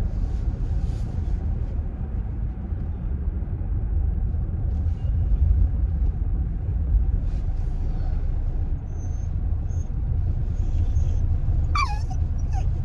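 Steady low rumble of a car driving, heard inside the cabin. Near the end a dog gives a short whine that falls in pitch.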